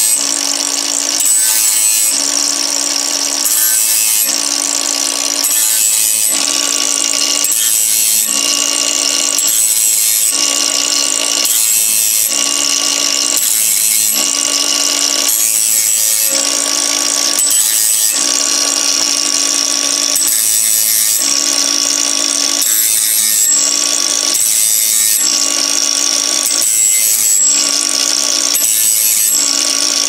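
Small electric angle grinder with a thin cut-off (zip cut) disc running, quickly touching up the teeth of a portable bandsaw mill's blade one after another. The grinding sound changes in an even rhythm about once a second as the disc meets each tooth and the blade is moved on.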